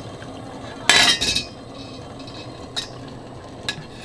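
Metal utensils clattering against a cooking pot and dish: one loud clatter about a second in, then a few light clinks, as boiled pork belly is lifted out of the pot.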